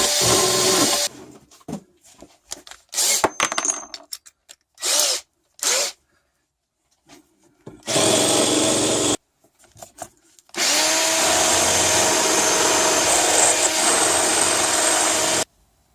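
Handheld power tool bevelling the edges of a small metal part: the motor runs with a steady whine in three bursts, a short one near the start, another about 8 s in, and a longer one of about five seconds near the end that cuts off suddenly, with knocks and scrapes of the part being handled in between.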